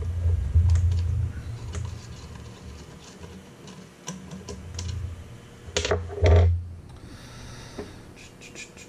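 Hands working wires and terminals inside a toaster oven's metal case: scattered small clicks and rattles, with dull low thumps in the first second or so and again about six seconds in, the loudest of them.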